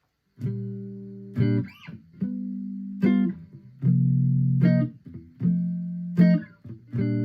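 Guitar playing a slow series of chords, each strummed and left to ring, starting about half a second in.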